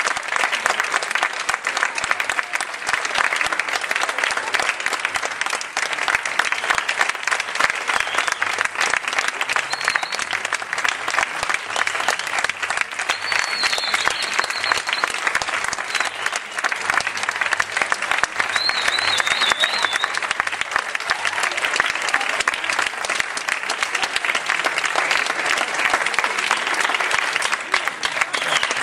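Theatre audience applauding steadily at the curtain call, a dense crowd of hand claps. A few short, high whistles come through about halfway, one of them warbling.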